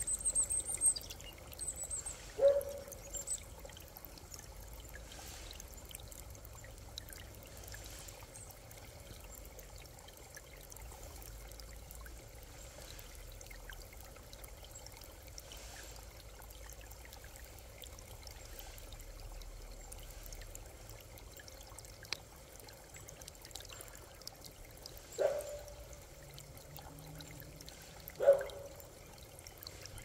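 Shallow creek water trickling steadily over stones and leaves, with a short louder sound about two and a half seconds in and two more near the end.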